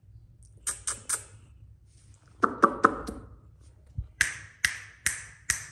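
A series of short sharp clicks and taps: three quick high clicks, then three duller knocks close together, then a steady run of sharp clicks about two a second.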